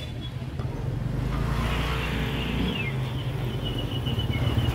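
Outdoor street noise with a motor vehicle engine running nearby: a rough low rumble that grows louder about a second in and then holds steady.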